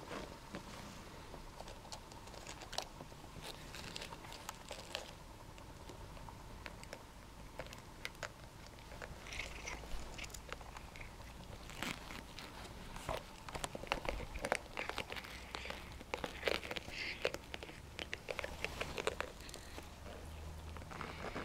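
A pin brush scraping through a cat's fur while the cat bites and claws at the brush: a run of scratchy rustles and small clicks, growing denser and louder in the second half.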